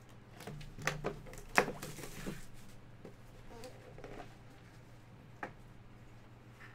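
A small cardboard trading-card box being unwrapped by hand, its plastic shrink wrap torn and crinkled off, then the box opened. Scattered clicks and rustles, the sharpest about a second and a half in, over a faint steady hum.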